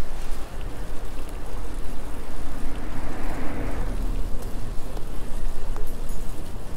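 Wind rumbling on a bicycle-mounted action camera's microphone while riding, with a passing car's noise swelling and fading about three seconds in.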